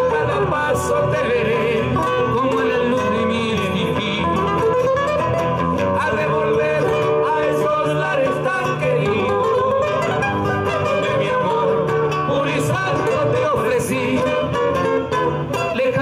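A man singing a Peruvian criollo song in Spanish, holding and sliding between long notes, accompanied by two acoustic guitars.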